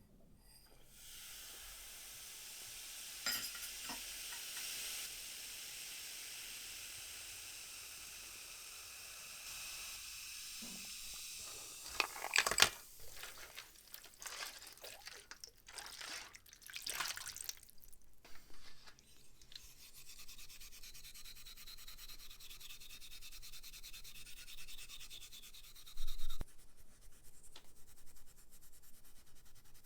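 Scrubbing and scraping on a small metal object while it is cleaned: a long stretch of steady brushing, then a run of clicks and scrapes from handling, more brushing, and one sharp knock near the end.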